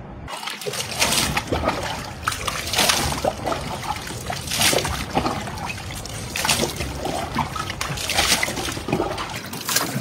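Mugfuls of water scooped from a plastic bucket and poured over a person's head and body, splashing onto a stone floor, about five pours roughly two seconds apart.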